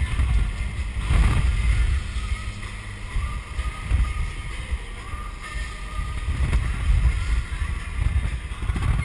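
A BMW driving at highway speed: a loud, uneven rumble of wind and road noise buffeting the GoPro's microphone.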